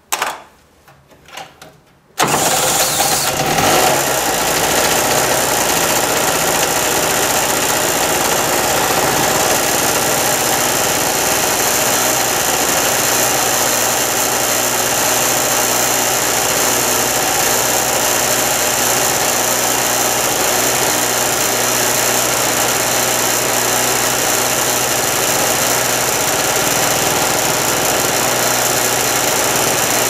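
Small two-stroke Harbor Freight portable generator engine, spun over by a cordless drill in a few short bursts, catches about two seconds in and then runs steadily. It has finally started after being badly flooded, its fuel valve left open in storage.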